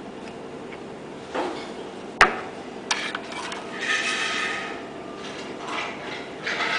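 Hard objects knocked and handled: a sharp click a little over two seconds in, another shortly after, and several bouts of rattling and rubbing, all over a steady machine hum.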